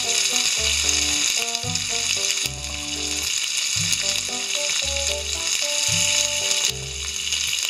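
Raw vannamei shrimps and chopped garlic sizzling loudly in a hot frying pan, freshly added to the pan. Light background music with a bass line and melody plays underneath.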